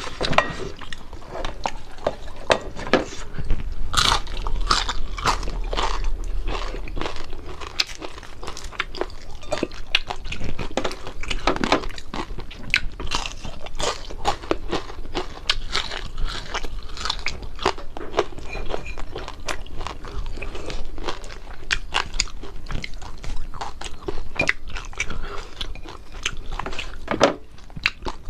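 A person biting and chewing crispy fried fish close to the microphone: irregular crunching throughout.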